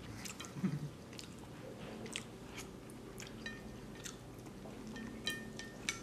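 Close-up chewing of black bean sauce noodles, with scattered light clicks of wooden chopsticks scraping and tapping a ceramic plate; a couple of the taps near the end ring briefly.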